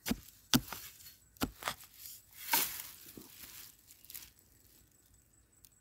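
A hand digging tool striking and scraping into soil and dry roots while digging out wild yam tubers, about seven irregular strokes with one longer scrape in the middle. The strokes die away after about four seconds.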